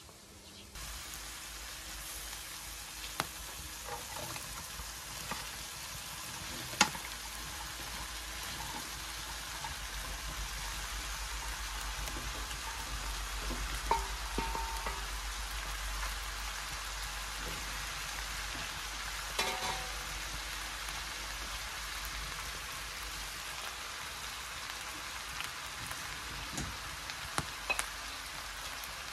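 Green beans frying in a pan on a wood-burning stove, a steady sizzle that starts about a second in, with a few sharp clicks and knocks.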